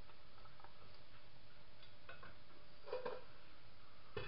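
Faint, irregular small ticks over a steady low background from a pot of stew on the stove. Near the end comes a sharp short clink as a stainless steel lid is set onto the pot.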